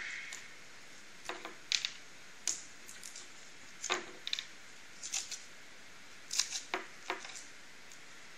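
About ten light, irregular metallic taps and clicks: a small hammer knocking dowel pins out of the ends of a metal tube, with the pins and fittings clinking.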